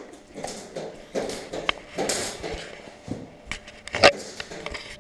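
Handling of a hand sanding block with sandpaper: irregular rustling and scuffing, with a sharp knock about four seconds in as the block is set down on a plastic car bumper.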